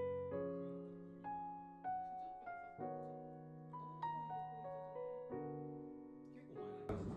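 Slow, gentle background piano music, one note at a time, each note struck and left to fade. Near the end a burst of noise comes in under the music.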